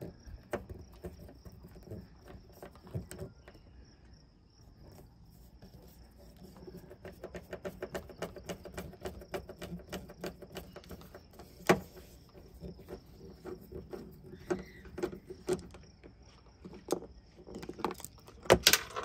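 Hand tools working a Torx T25 screw out of plastic interior trim: scattered clicks and taps, a run of quick, even clicks around the middle, and a sharp knock about two-thirds through and again near the end.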